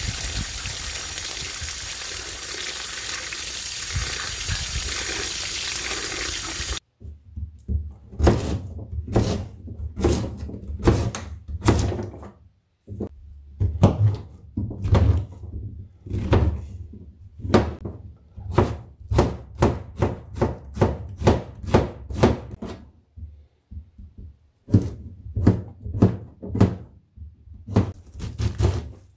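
Water pouring over vegetables in a stainless steel bowl, a steady rush that stops abruptly about seven seconds in. Then a kitchen knife chopping oyster mushrooms and squash on a plastic cutting board: irregular knocks and thuds, up to about two a second, with short pauses.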